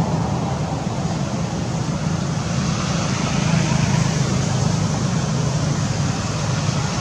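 Steady low rumble with a hiss over it, even throughout, with no distinct knocks or calls.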